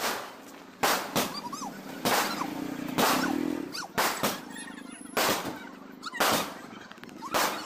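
Aerial fireworks firing and bursting overhead: a series of sharp bangs, roughly one a second.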